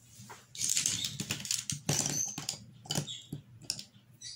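Paintbrushes and a cardboard cutout being handled on a craft table: a scraping slide of cardboard and irregular light clicks and taps of the brushes being picked up and set down.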